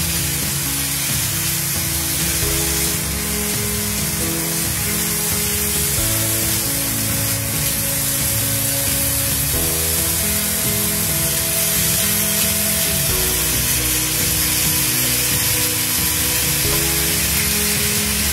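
Strips of oiled skirt steak sizzling on a hot, open electric contact grill as more are laid on, a steady hiss. Background music with sustained chords that change every few seconds plays alongside.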